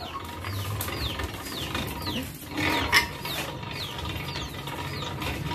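Motor-driven rice-noodle (bún) extruder press running: a steady hum, with a short high falling squeak repeating about twice a second.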